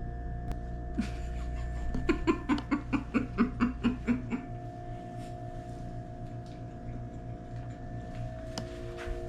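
A woman laughing briefly: a quick run of about a dozen short pulses, roughly five a second, lasting a couple of seconds.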